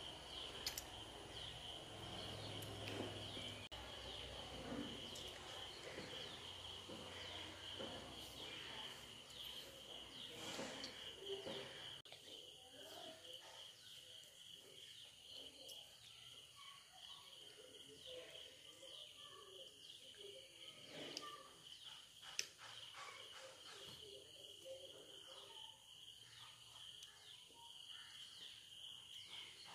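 Faint, steady high-pitched insect chirring that pulses slightly, with scattered soft mouth and handling noises and a sharp click about 22 seconds in.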